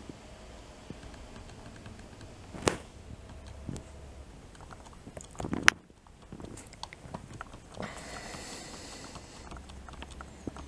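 Push buttons on a 12 V digital programmable timer being pressed to set the time, giving small irregular clicks. Two sharper, louder clicks come about a quarter and halfway through.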